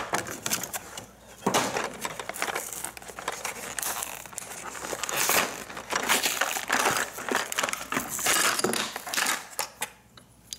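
Clear plastic blister packaging crinkling and crackling irregularly as it is handled and pulled apart to free wooden toy trains, dying down near the end.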